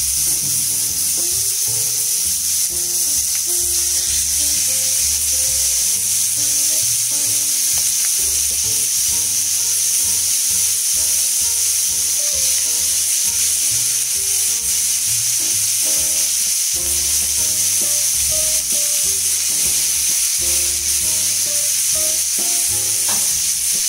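Marinated chicken leg pieces sizzling steadily in hot oil in a frying pan over high heat as they are laid in one by one, with background music playing under the sizzle.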